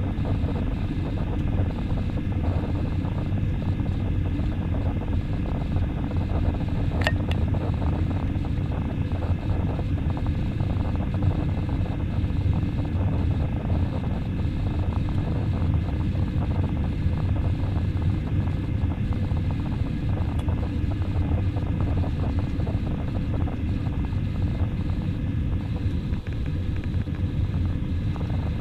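Steady rumble of an Airbus A320's engines and airflow, heard inside the passenger cabin in flight, with faint steady whines over it. There is a single short click about seven seconds in.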